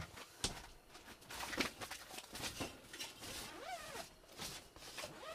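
Clothing rustling and scattered knocks and scuffs from someone moving about and handling things, with a brief rising-and-falling squeak a little before four seconds in.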